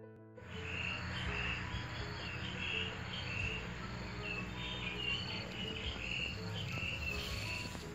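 Piano music cuts off about half a second in, giving way to insects chirping in short, repeated bursts over a steady outdoor hiss and a low rumble.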